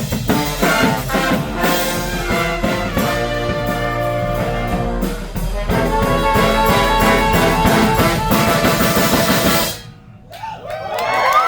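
Street brass band with trumpets and a drum kit playing the final bars of a tune, stopping abruptly about ten seconds in. The crowd then starts cheering and whooping.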